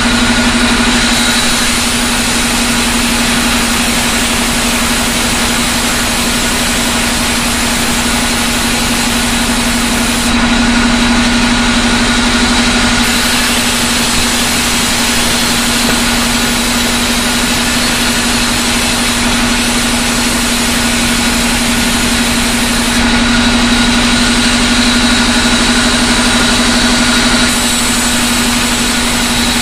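Large sawmill band saw running steadily with its blade rasping through jackfruit-wood boards, under a constant machine hum. It grows louder for a few seconds about ten seconds in and again after twenty seconds.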